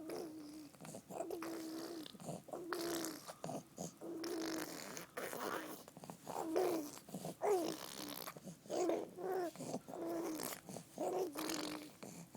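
A young child making funny vocal noises: a string of short voiced sounds, roughly one a second, some held on one note and some sliding up and down, with breathy huffs between them.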